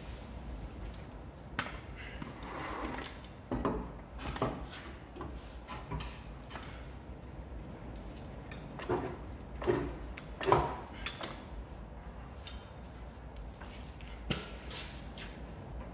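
Irregular metallic clunks, knocks and scrapes as a car's steel front crossmember and chassis-leg section is levered and shifted into position with a long pry bar. The three loudest knocks come close together about nine to eleven seconds in.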